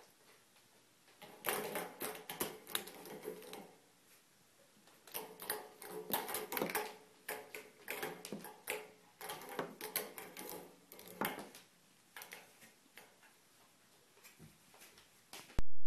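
A cat's paws tapping and clattering on the keys and casing of a small laptop, in irregular runs of clicks. The sound cuts suddenly to a loud low hum near the end.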